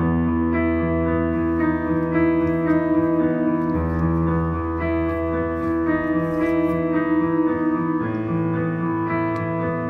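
Background music of piano or electric piano with a bass line, playing sustained chords that change every second or so.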